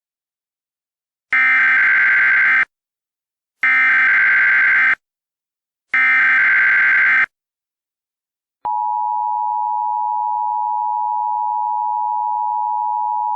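Emergency Alert System tones. Three SAME header data bursts, each about a second long with short gaps between them, are followed by the steady two-tone attention signal, which starts about two-thirds of the way in and holds for about five seconds. Together they mark the start of a new alert.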